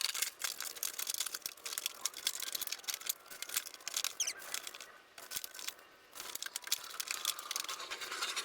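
Plastic inner fender liner being worked back into a pickup's wheel well: a continuous run of scraping, crinkling and small clicks. There is a brief squeak about four seconds in.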